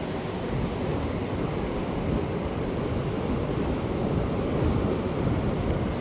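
Steady wind noise on the microphone mixed with the wash of surf.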